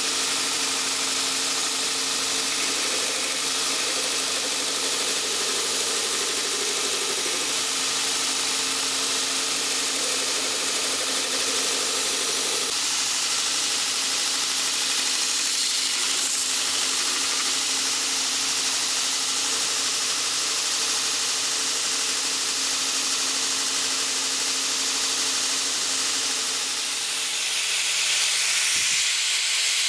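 Belt grinder running steadily while a walnut knife handle is pressed against the belt to shape it. Near the end the sound changes to an electric hand sander's motor with a hiss of sanding.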